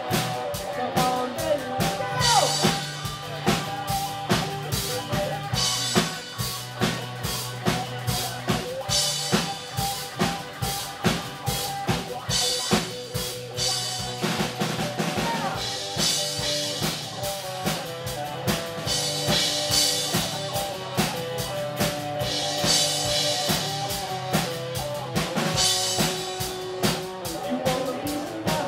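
Live rock band playing an instrumental passage: a drum kit keeps a steady beat with kick, snare and cymbals under electric and acoustic guitars.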